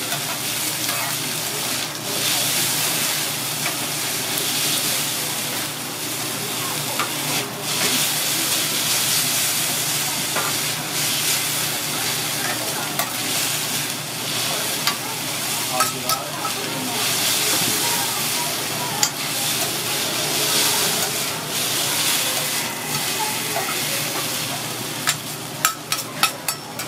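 Fried noodles, cabbage and bean sprouts sizzling on a hot teppanyaki iron griddle as they are turned with metal spatulas, with small scrapes and clicks of the spatulas on the griddle. A quick run of sharp spatula taps comes near the end.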